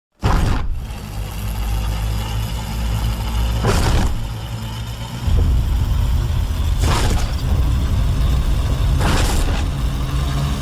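Kaiju monster sound effect: a loud deep rumble that starts suddenly, with short hissing swells breaking through about every two to three seconds.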